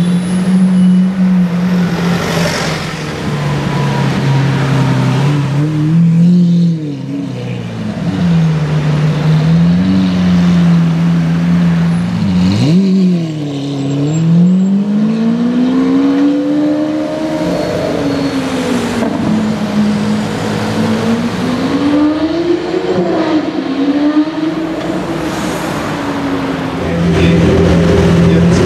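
Lamborghini Aventador's naturally aspirated V12 engine running, its note rising and falling as the revs climb and drop again and again. About twelve seconds in there is a sharp quick throttle blip, and near the end the engine settles to a steady note.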